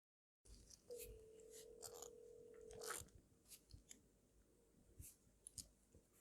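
Near silence on a phone line being connected: faint clicks and one steady tone lasting about two seconds, with no voice.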